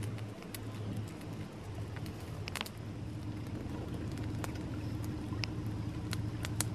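Small wood fire of branches burning, crackling with scattered sharp pops over a steady low hum.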